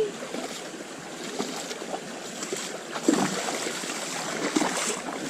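Creek water running over shallows, with a few splashes about three seconds in.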